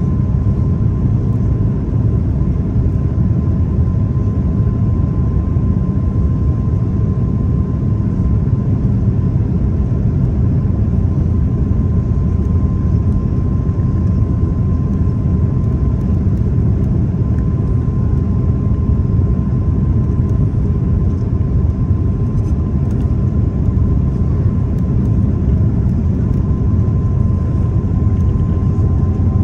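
Jet airliner cabin noise: a steady low rumble of engines and airflow heard from inside the passenger cabin, with a faint steady high tone above it.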